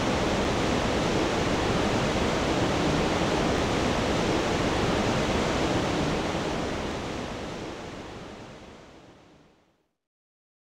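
Steady rushing of river water, an even hiss with no distinct events, fading away over the last few seconds.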